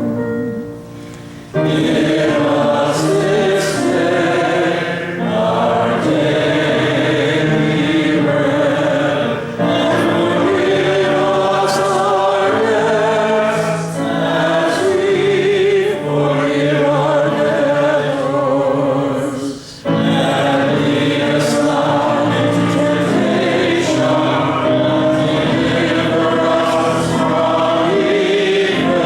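A group of voices singing a hymn together, held notes in long phrases, with short breaks about a second and a half in and just before twenty seconds.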